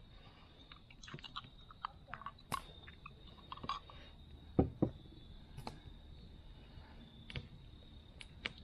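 Metal spoon scraping and clinking in a jar of pesto and spreading it onto crescent dough in a cast-iron pie iron: scattered small clicks and taps, with two louder knocks about halfway through.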